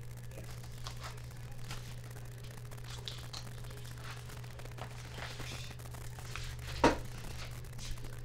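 Small handling noises: faint rustling and crinkling with scattered light clicks, and one sharp knock about seven seconds in followed by a lighter one a second later, over a steady low hum.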